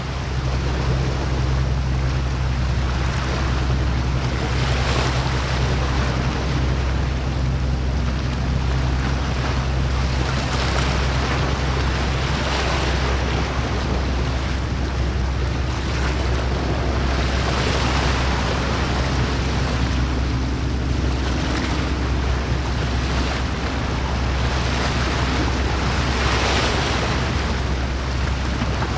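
Steady low drone of a passing boat's engine, under the rush of water and wind on the microphone, which swells and fades every few seconds.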